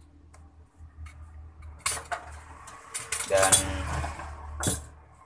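Clinking and rattling of cable plugs and connectors being handled, with a sharp click about two seconds in and another near the end.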